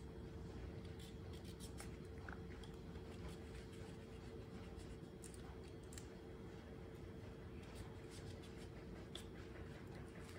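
Faint, scattered small scrapes and clicks of a knife peeling a green mango, over a steady low hum.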